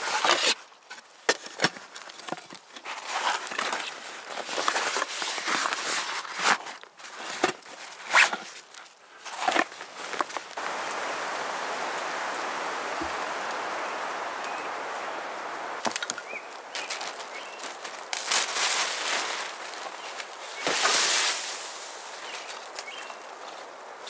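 Metal camp cookware, nested pans and a plate, clinking, scraping and rustling as it is handled and packed, in many short sharp knocks over the first ten seconds. This gives way to a steady hiss lasting several seconds, with a few louder rushing swells near the end.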